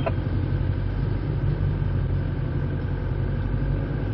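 Steady engine drone and road noise heard inside a moving car's cabin.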